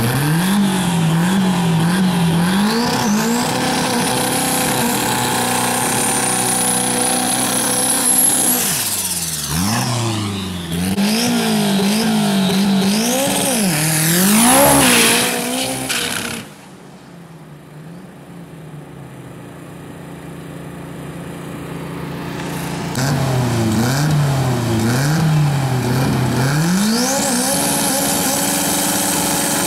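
Drag car's engine revving hard, the revs rising and falling quickly over and over, with a high rising whine above it. About halfway through the sound drops away abruptly, then builds back up to the same rapid revving near the end.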